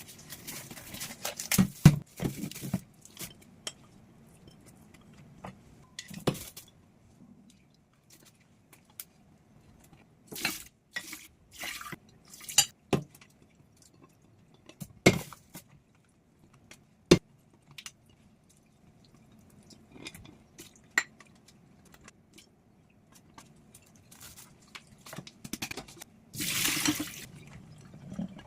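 Dishes being washed by hand: scattered clinks and knocks of plates, glassware and cutlery, with a couple of seconds of splashing water near the end.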